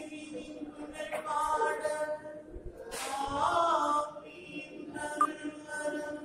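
Group of men and women singing a prayer together in long held notes. The villu bow and clay pot drum are not struck.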